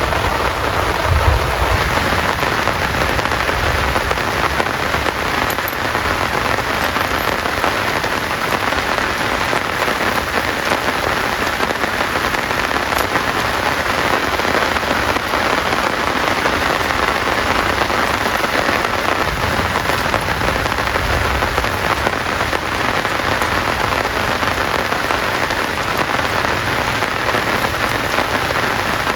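Heavy rain falling steadily, a dense, even patter with no let-up.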